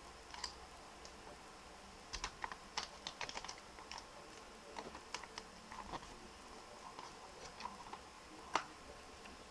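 Faint crackling and clicking of a small square of origami paper as fingers fold and crease it, in scattered short clicks, with a cluster a couple of seconds in and a sharper click near the end.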